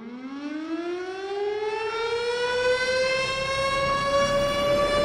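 Air-raid siren winding up: one long tone rising slowly in pitch and growing louder.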